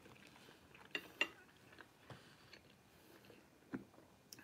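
A few light clicks of chopsticks against a plate of noodles: two close together about a second in and another near the end.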